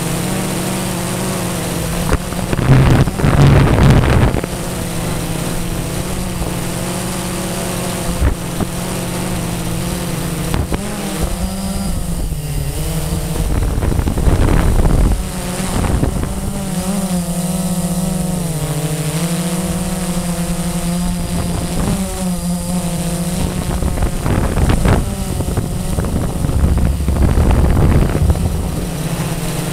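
Blade 350 QX quadcopter's brushless motors and propellers whining steadily, the pitch shifting up and down as the throttle changes. Wind buffets the microphone in loud gusts about three seconds in, around the middle and near the end.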